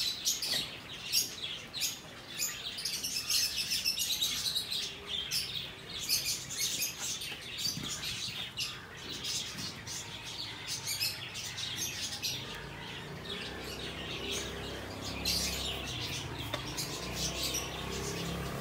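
Many small birds chirping in quick, irregular short calls. About twelve seconds in, a low steady rumble joins underneath.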